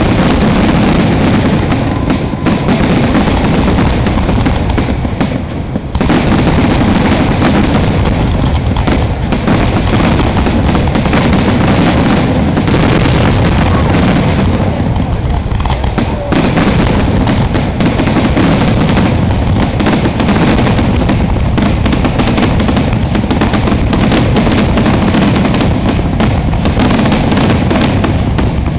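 A dense, continuous barrage of fireworks: rapid cracks and booms with crackling from the bursts, easing off briefly twice.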